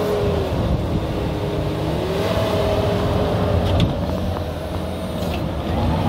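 Case TV450 compact track loader's diesel engine running steadily as the machine pushes and mixes wet soil with its bucket, with a steady whine over the engine noise and a couple of sharp knocks about midway.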